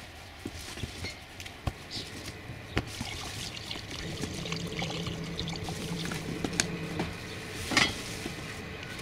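Cardboard box being unpacked by hand: rustling and scraping of cardboard and packaging, with scattered knocks and taps as parts are lifted out and set down. The loudest moment is a short burst of rustling near the end, and a faint steady low hum runs through the middle.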